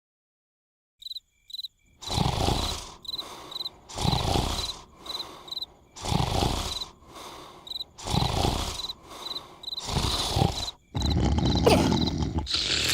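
Snoring of the cartoon larva character: loud breaths in a slow rhythm, about one every two seconds, over repeated cricket chirps. Near the end it turns into a louder, unbroken noise.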